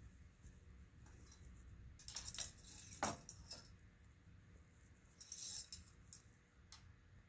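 Faint handling noises: a few light clicks and short rattles, with one sharper click about three seconds in.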